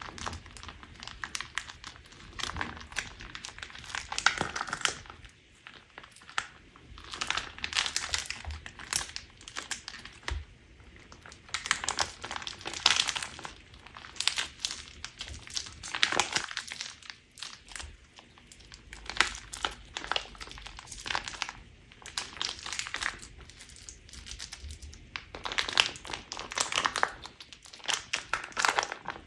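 Crunch slime being squeezed and pressed by hand, crackling and crinkling in repeated bursts a second or two apart.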